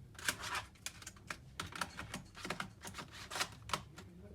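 Irregular light clicks and short scraping rustles of plastic laptop parts being handled and fitted.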